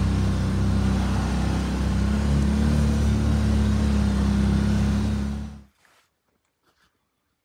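ATV engine running steadily under way, a loud low drone that cuts off suddenly near the end.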